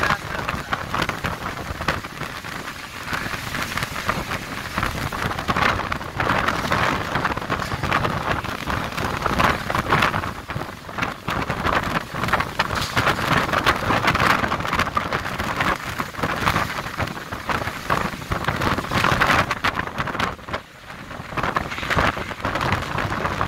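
Storm wind and rain, a loud rushing noise that swells and eases with the gusts, dropping briefly near the end.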